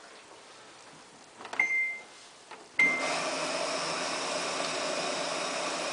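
Samsung front-loading washing machine in service test mode: a few faint clicks and a short beep about a second and a half in, then a second beep near three seconds in as the main wash and softener inlet valves open and water runs steadily into the drum.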